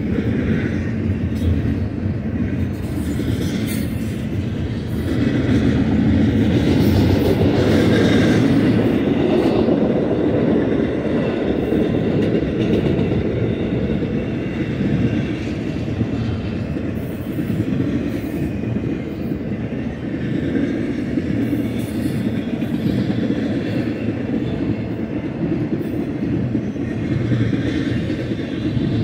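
Intermodal freight train's double-stack container and trailer cars rolling past: a steady rumble and clatter of steel wheels on the rails, swelling a little a few seconds in.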